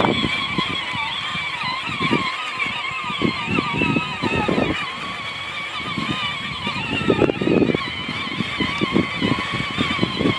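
Kid's ride-on John Deere mower running with a steady, wavering high whine, with irregular knocks and bumps as it rolls over rough ground.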